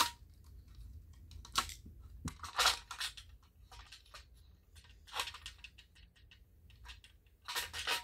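Handling noises of a metal fire alarm pull station: a screwdriver tip clicking on a screw in the steel backplate, then irregular scrapes and clicks as the metal plate and back box are picked up and handled, with a sharp click at the start and louder scrapes about a second and a half in, around two to three seconds in, and near the end.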